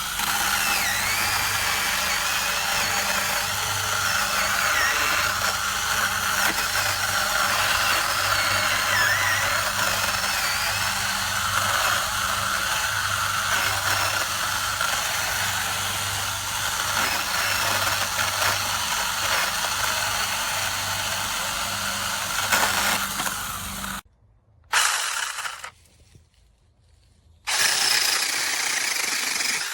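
V-Modest cordless handheld mini chainsaw's electric motor running with its chain cutting wood, the whine wavering as the load changes. It stops suddenly about 24 seconds in, gives one short burst, then runs steadily again near the end.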